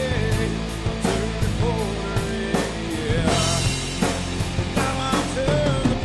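Rock song with singing over a steady drum beat.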